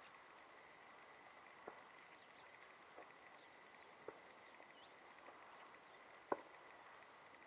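Near silence outdoors: a faint hiss with a thin steady high tone, a few sharp clicks with the loudest about six seconds in, and a few faint distant bird chirps near the middle.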